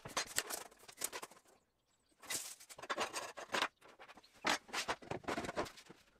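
Aluminium track saw guide rail being slid and scraped across a plywood sheet as it is positioned for a cut, with hands and knees shuffling on the board. Irregular scraping strokes, with a short pause a bit under two seconds in.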